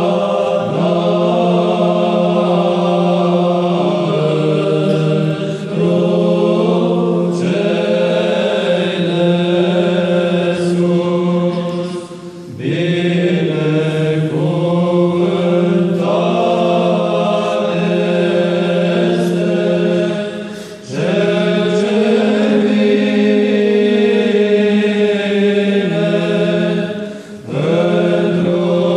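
Monks' choir singing Byzantine chant responses of the Orthodox Easter liturgy over a steady low ison drone, loud and close. The singing breaks off briefly three times between phrases.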